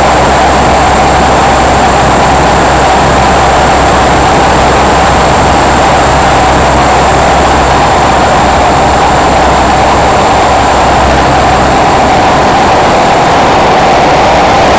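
Thunder Tiger Raptor E550 electric model helicopter in flight: a steady, loud drone from the rotor and motor with a thin high whine over it. Wind noise is mixed in on the microphone.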